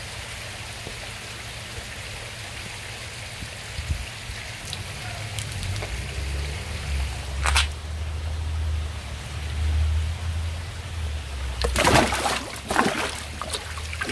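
Koi pond water trickling steadily, with a low rumble coming in partway through. One splash sounds about halfway, and a louder flurry of splashing comes near the end as a koi is handled in the water.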